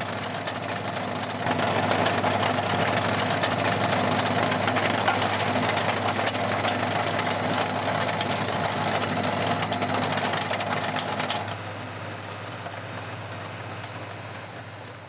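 Tractor-mounted AFT 100 trencher at work: the tractor engine running steadily with the noise of the digging boom cutting through soil and stones. It gets louder about a second and a half in, drops back near twelve seconds, and fades out at the end.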